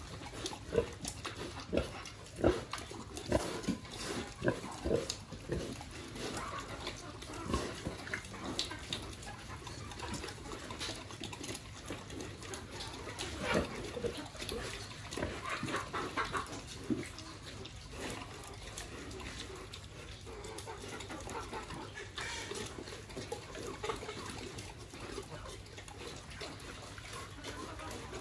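A sow eating from a concrete feed trough, with pig sounds. A run of short, loud eating sounds comes in the first eight seconds, and fewer come after that.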